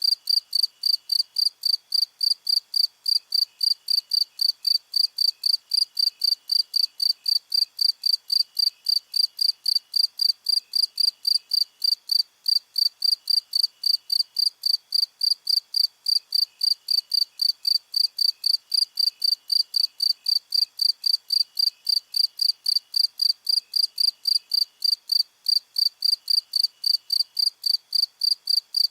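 Crickets chirping. One cricket gives loud, high, evenly spaced chirps about three a second, and a fainter, lower-pitched chirping comes in short runs every couple of seconds behind it.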